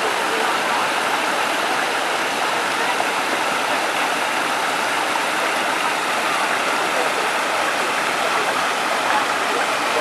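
Mountain waterfall cascading down a rock face: a steady, even rush of water.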